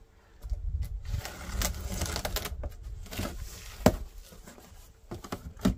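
Cardboard shipping box and packing being opened and handled: rustling and scraping with scattered clicks, and two sharp knocks, one about four seconds in and one near the end.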